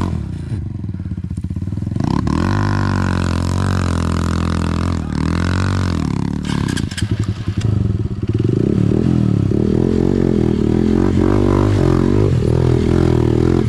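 Motorcycle engine running, its pitch rising and falling as the throttle is worked, then holding steady and a little louder from about eight seconds in. A few sharp clicks come just past the middle.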